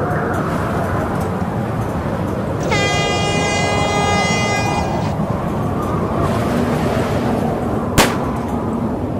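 A hand-held air horn gives one steady blast of about two seconds, and near the end a starting pistol fires a single shot. Both are race signals from the regatta committee boat, heard over a steady rush of wind and water.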